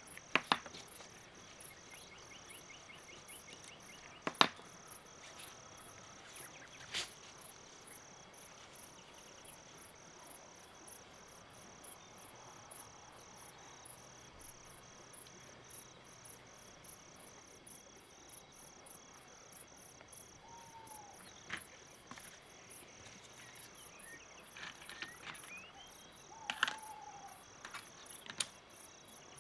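Cricket chirping steadily, about three chirps a second, with a few sharp clicks and taps of small metal parts and tweezers being handled.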